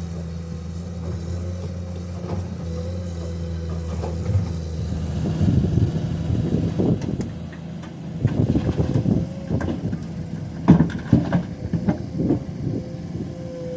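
Heavy diesel engine running steadily, joined from about five seconds in by a run of irregular clattering and knocks, typical of limestone rocks being dropped into a dump truck's steel bed. The loudest knock comes near the end of that run.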